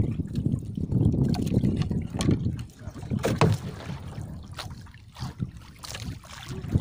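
Wind rumbling on the microphone over sea water splashing against a small boat, with a hooked fish splashing at the surface near the end as the hand line is hauled in.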